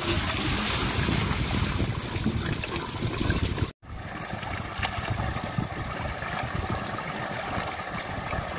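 Running water pouring into a metal basin and splashing over the ground, while hands slosh and rub chopped mutton pieces in turmeric water to wash them. The sound breaks off for an instant a little under four seconds in.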